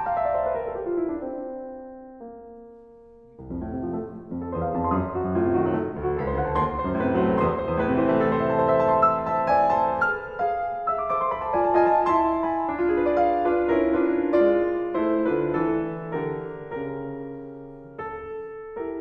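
Background piano music: a falling run of notes that dies away, then fuller chords from about three seconds in.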